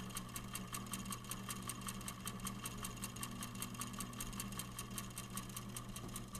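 Tiny solar-powered pulse motor running: its magnet rotor on a pin rattles in the copper wire loops that hold it, giving a rapid, even clatter over a low steady hum that sounds a bit like a real engine idling. The hollow candle holder it sits on adds to the sound.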